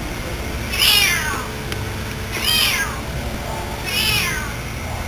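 An animal calling: three high calls about a second and a half apart, each sliding down in pitch.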